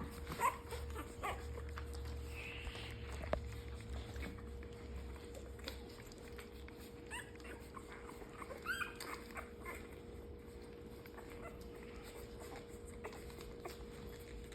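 Newborn puppies giving short, high squeaks and whimpers, a few near the start and a cluster about seven to nine seconds in, over a steady hum.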